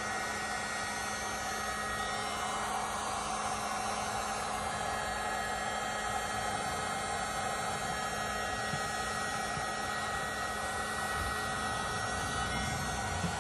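Electric heat gun running steadily, blowing hot air to soften a length of rubber garden hose so it can be pushed into place on a solution hose.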